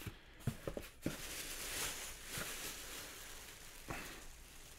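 Packing material rustling and crinkling as a package is unwrapped, with a few light clicks and knocks of handling.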